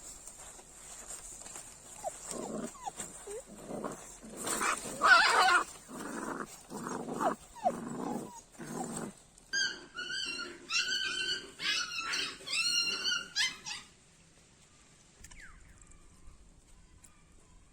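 An animal calling: a run of short, low calls, then a quick series of high, whining calls about halfway through, then it stops.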